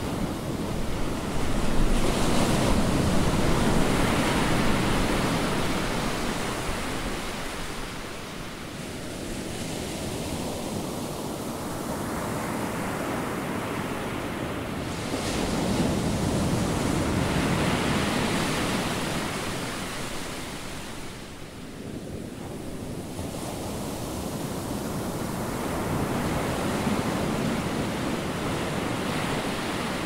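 Ocean surf breaking on the beach, with wind: a steady rushing noise that swells and fades in slow surges every ten seconds or so.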